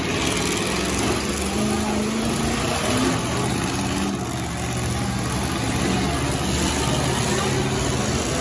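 Engines of several demolition-derby pickup trucks running and revving unevenly, over the steady hubbub of a large crowd.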